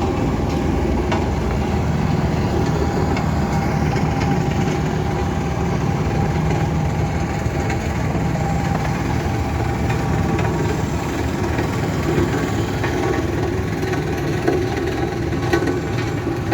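Heavy diesel engine running steadily at low revs, a constant low drone with a few faint knocks over it.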